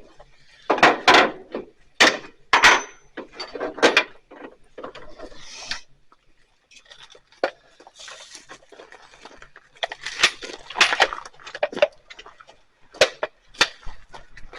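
Carpenter's hammer striking a center punch on a truck hood, a series of sharp metallic taps marking hole positions for drilling, one leaving a brief ring.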